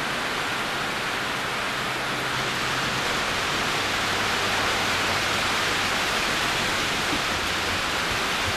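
A steady, even hiss of noise with a faint low hum beneath it; no distinct hoofbeats or other events stand out.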